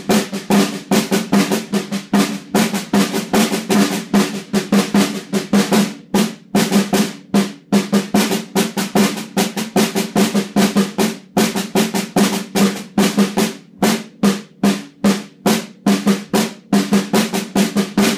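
Snare drum played with sticks in a fast, steady stream of strokes over a ringing drum tone, with a brief break about six seconds in. The strokes stop near the end and the ring fades out.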